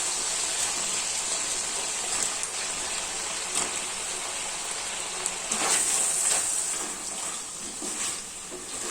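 Golden-browned chicken pieces frying in oil in a frying pan: a steady sizzle with scattered crackles and clicks, busiest around the middle and easing a little near the end.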